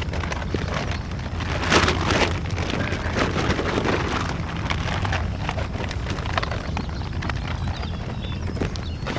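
Crinkling and rustling of a large plastic shopping bag being handled, with crunching steps on a gravel shore. The loudest rustle comes about two seconds in.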